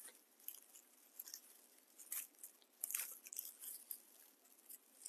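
A bundle of dry raffia and jute strands being gathered and worked in the hands: faint, irregular crackling rustles, a little louder about two and three seconds in.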